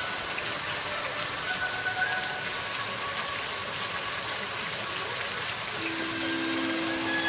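Illuminated fountain jets spraying and falling back into the pools: a steady hiss of splashing water. Faint music sounds underneath, and a held low note comes in near the end.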